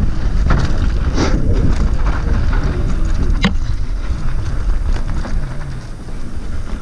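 Wind buffeting a handlebar-mounted action camera's microphone as a mountain bike descends a dirt singletrack, with tyre noise on dirt and rattles and knocks from the bike over rough ground. A sharp knock about three and a half seconds in.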